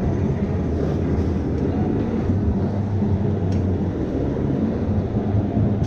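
Electric go-kart driving on the track, heard from the driver's seat: a steady low motor hum under a constant rushing noise.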